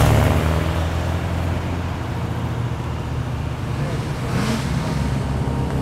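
Car engine and twin exhaust running at low revs as a muscle car rolls slowly past and away. It is a steady deep rumble that eases off a little over the first couple of seconds.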